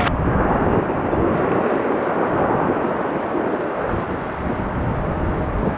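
Steady roar of a jet airliner's engines, mixed with wind buffeting the microphone.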